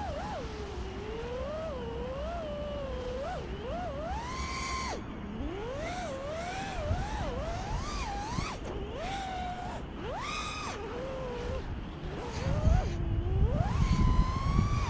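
FPV quadcopter's brushless motors whining, the pitch rising and falling constantly with the throttle and sometimes jumping sharply. A louder rush of wind on the microphone comes in near the end.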